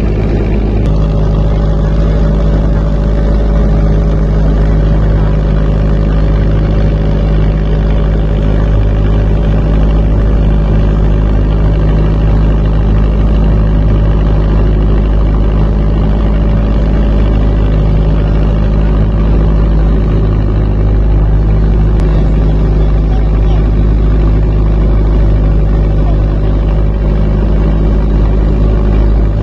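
A boat's engine running steadily under way, a constant low drone with a steady hum, over the rush of water along the hull.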